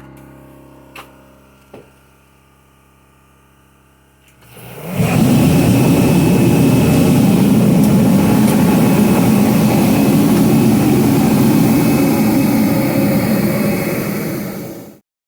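A loud, steady machine noise with a rushing quality starts about four and a half seconds in, holds, then cuts off suddenly; two faint clicks come before it.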